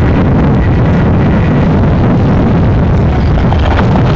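Steady low rumble of an approaching Union Pacific coal train's diesel locomotives, with wind noise on the microphone.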